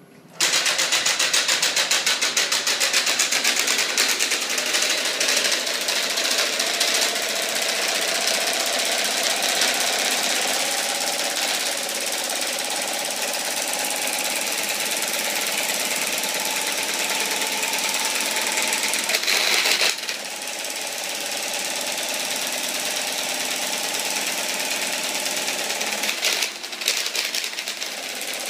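Homemade neodymium-magnet engine driving a flapping-wing mechanism, starting up suddenly and running with a loud, very fast rattle. Its pitch creeps up slowly over the first twenty seconds, then drops.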